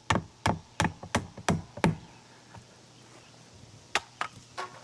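Hand tools striking wood: a quick, even run of about six sharp knocks, roughly three a second, then a pause and three more knocks near the end.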